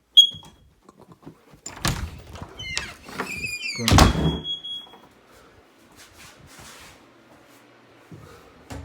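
A door opened with a squeak and shut with a heavy thud about four seconds in, a smaller knock near the end. A smoke alarm's high beep sounds briefly at the start and again as the door shuts.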